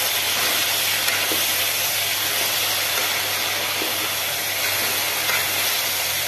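Potato and onion slices frying in oil in a pressure cooker, a steady sizzle, with a spoon stirring them around the pot.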